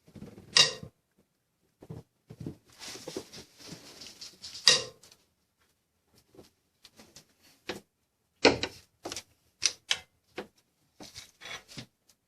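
Metal hand tools clinking and knocking against engine parts, with a short stretch of scraping and rattling a few seconds in and a handful of sharper metallic strikes.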